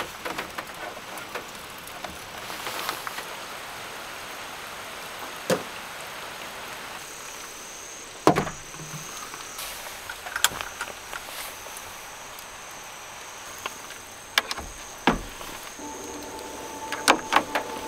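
Scattered clicks and knocks of small camping gear being handled and hung on pegboard hooks inside a small van, over a steady hiss of rain. A faint, thin, high whine sets in partway through and holds steady.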